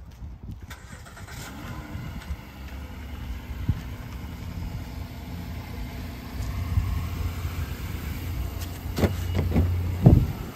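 2019 Honda Ridgeline's 3.5-litre V6 starting: it catches and flares briefly about a second and a half in, then settles into a steady idle. A few knocks and a heavy thud come near the end.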